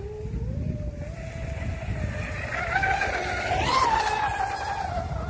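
Brushless-electric RC catamaran (SSS 3674 2075 kV motor on 6S LiPo) running at speed and passing close by: a motor-and-propeller whine that climbs in pitch as it approaches, is loudest about four seconds in, then eases slightly in pitch as it goes by, over a low steady rumble.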